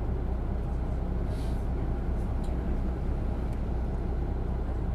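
Isuzu Erga city bus's diesel engine and road noise heard from inside the cabin while driving: a steady low drone with no gear change or change in pitch.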